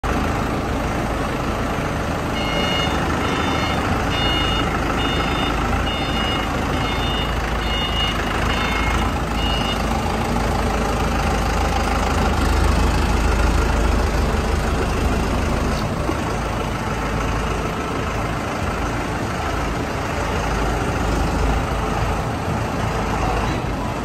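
Lonking forklift's engine running as it manoeuvres, with its reversing alarm giving a series of short, evenly spaced beeps, a little more than one a second, for about seven seconds from a few seconds in.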